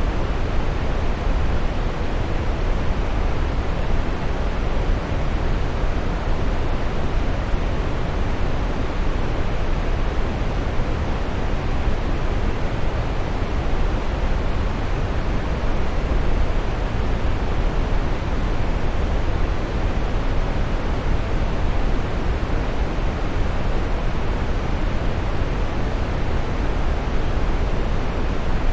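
Waterfall: water falling and splashing in a steady, unbroken rush with a deep rumble.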